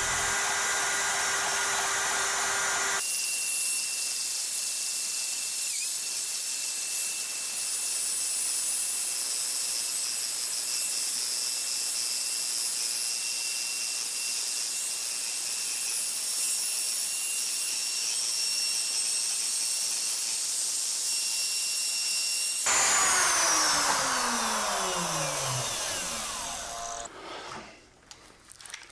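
Router on a shop-built router lathe, its bit cutting the corners off a spinning hexagonal wooden blank on the first pass: a steady high whine with a rough cutting noise. Near the end the router is switched off and winds down, its pitch falling.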